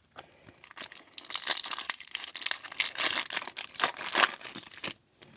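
Foil wrapper of a trading-card pack being torn open and crinkled: a dense crackling from about a second in that stops near the end.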